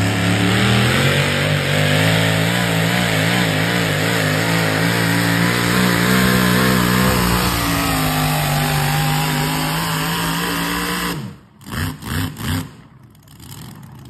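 Super modified four-wheel-drive pulling truck's engine running hard at high revs as it drags the weight sled down the track. The engine cuts off abruptly about eleven seconds in at the end of the pull, followed by three short blips of the throttle.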